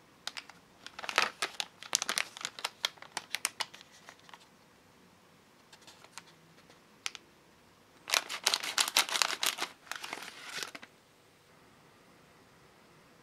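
Plastic packaging of a Kracie DIY candy kit crinkling as it is handled by hand, in two spells of rapid crackles: one in the first four seconds or so, another from about eight to eleven seconds in, with a few lone crackles between.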